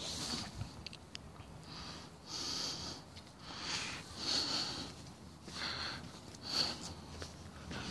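A person breathing close to a phone microphone while walking, with hissy breaths in and out coming roughly every second.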